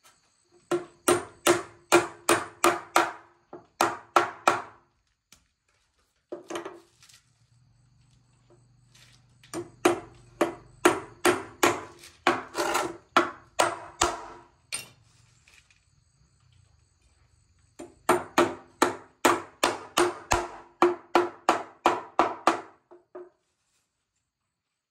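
A tool striking wood over and over, about three blows a second, in three long runs with pauses between them. Each blow carries a short ringing note.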